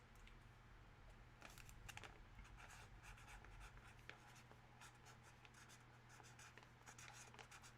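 Near silence with faint, irregular scratching and light clicks, starting about a second and a half in, over a low steady room hum.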